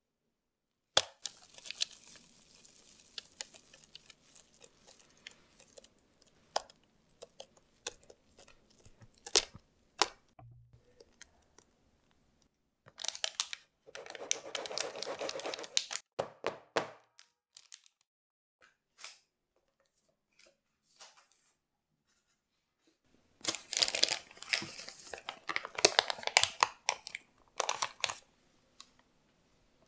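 Parchment baking paper rustling and crinkling as it is handled in a plastic container, with scattered sharp clicks and taps. It comes in three bouts, with a quiet stretch shortly after the middle.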